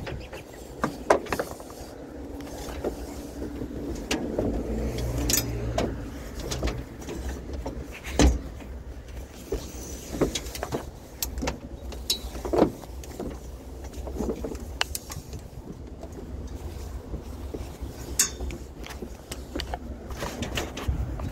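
A road vehicle driving, with a steady low engine and road rumble and scattered knocks and rattles, the loudest about eight seconds in.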